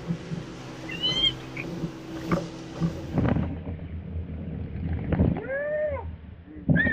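A skiff's outboard motor runs steadily at speed under wind noise. A short high chirp comes about a second in, and a longer call that rises and then falls in pitch comes near the end.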